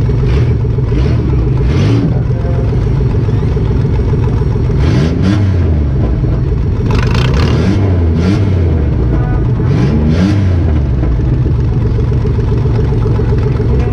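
A 2005 Chrysler Town and Country minivan's V6 engine running, heard from inside the gutted cabin, with the throttle blipped three times near the middle so the engine rises and falls in pitch. Short clicks and clatters from the bare cabin are heard now and then.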